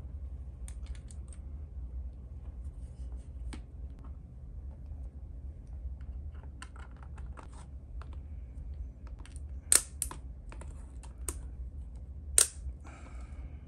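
Scattered small clicks and taps of keyboard parts being handled, with two sharper, louder clicks near the end, over a steady low hum.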